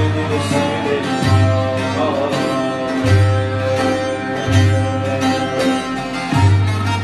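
Instrumental break of a Turkish folk song (türkü): bağlama and kabak kemane playing the melody over held bass notes that change about every second and a half, with no singing.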